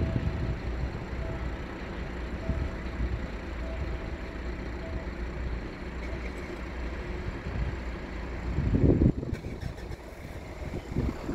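Steady low rumble of distant engines with wind buffeting the microphone, a strong gust about nine seconds in. A faint tone repeats in short beeps through the first half.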